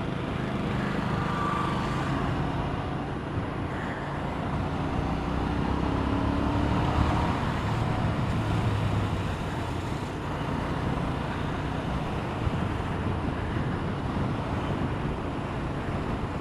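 Steady road and traffic noise from a motorbike riding in busy traffic: engine and tyre rumble, with a faint rising engine tone around the middle.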